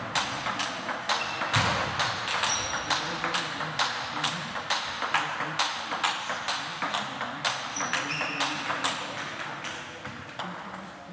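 Table tennis balls clicking off bats and tables in quick, irregular succession from rallies. The clicks thin out near the end.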